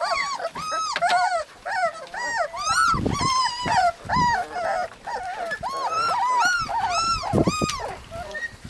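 Husky puppies whining and yipping: a rapid string of short, high cries, each rising and falling in pitch, several a second and often overlapping.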